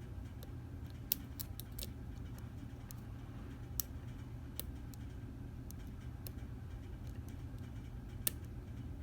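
Lock pick working the pin stack of a Stanley 24/7 padlock, with small sharp metallic clicks and ticks coming at irregular intervals. A steady low hum runs underneath.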